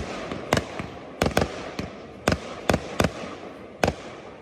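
Fireworks display: aerial shells bursting in a rapid, irregular run of about nine sharp bangs, with a continuous crackling hiss between them.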